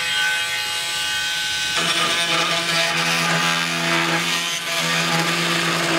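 Cordless drill running continuously into the wooden trailer frame, a steady motor whine that turns noisier and fuller about two seconds in as it bites into the wood.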